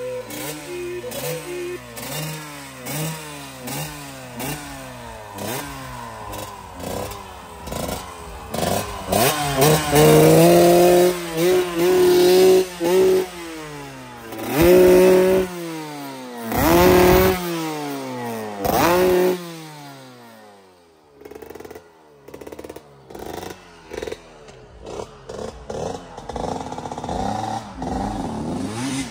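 Dirt bike engine revved in quick repeated blips, the pitch rising and falling over and over. The engine then surges hard several times as the bike accelerates away, and fades about two-thirds of the way through before a quieter engine note returns.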